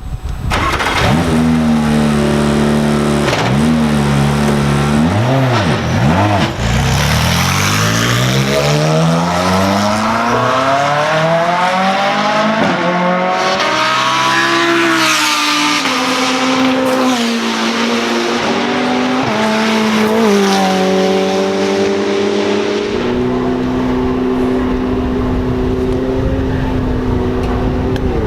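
Ferrari 488 GT3 race car's twin-turbo V8 running hard on track. Its pitch climbs steadily for several seconds, drops sharply about halfway through, then holds fairly steady to the end.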